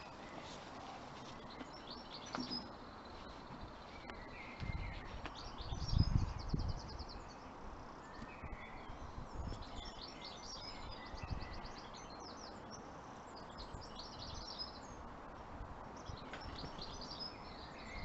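Tits chirping and calling around the nest, with short high notes and quick trills on and off throughout. A low rumble comes about five to seven seconds in and is the loudest sound.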